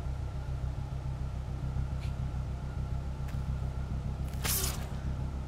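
Steady low rumble from an animated fight's soundtrack, with two faint clicks and a short whoosh about four and a half seconds in.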